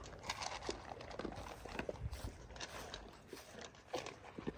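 A puppy eating dry kibble from a stainless steel bowl: irregular crunching and the kibble clicking against the metal.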